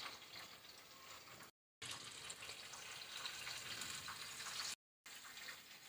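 Faint sizzling of eggplant wedges and whole tomatoes deep-frying in hot oil in a pan. The sound drops out to silence twice, briefly, about a second and a half in and again near the end.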